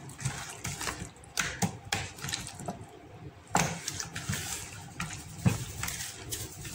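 Gloved hand squishing raw chicken wings through a thick yogurt marinade in a plastic bowl: irregular wet squelches and slaps, with a few sharper ones.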